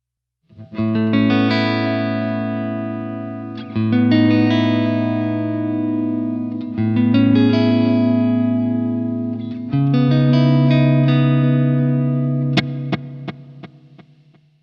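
Electric guitar played through a Walrus Audio ARP-87 delay pedal. Four sustained chords, a new one about every three seconds, each left to ring out, then a quick string of fading ticks near the end.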